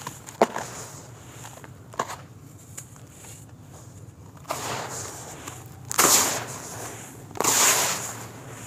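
Hands squeezing and crumbling handfuls of dry, lumpy dirt and letting it fall back into the pile. A few sharp cracks of clumps breaking in the first half, then three rushes of falling, crunching soil, the last two loudest.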